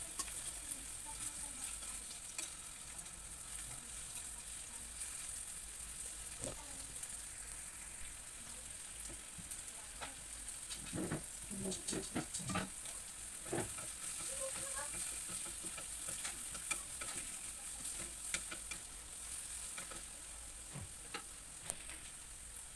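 Pieces of meat sizzling steadily in a frying pan on a gas burner. Around the middle, a short run of knocks and scrapes as chopped vegetables are pushed off a wooden cutting board into the pan.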